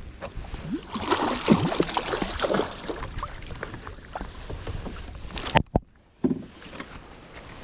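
Water splashing and sloshing around a fishing kayak, with scattered knocks and wind on the microphone; the sound cuts out briefly about six seconds in.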